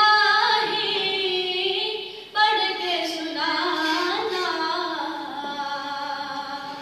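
A young male voice singing a naat unaccompanied: two long, ornamented held phrases that slide downward in pitch, with a short breath between them a little over two seconds in.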